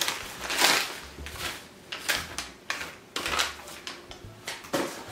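Plastic packaging crinkling and rustling, several short crinkles in a row, as a parcel is handled and unwrapped.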